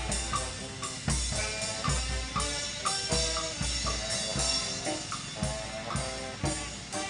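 Vietnamese kèn tây brass band playing: bass drum and snare beat a steady rhythm under a horn melody.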